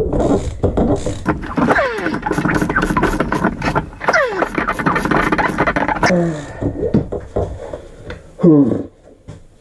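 A Suzuki GN250 single-cylinder engine is turned over by hand with a wrench on the crankshaft during a compression test, with oil added to the cylinder to seal the piston rings. Rapid clicking and mechanical clatter come with straining breaths and grunts, then stop about six seconds in.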